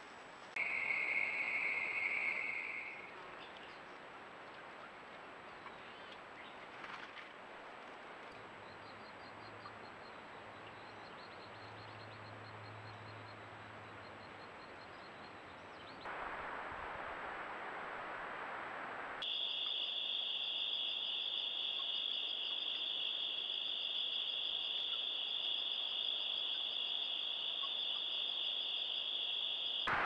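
Insects trilling steadily at a high pitch: a short trill near the start, faint pulsed chirping in the middle, then a louder continuous trill that sets in about two-thirds of the way through.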